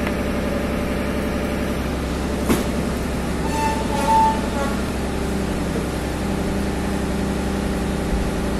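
A motor vehicle engine idling steadily close by, with a sharp click about two and a half seconds in and a brief high tone about four seconds in.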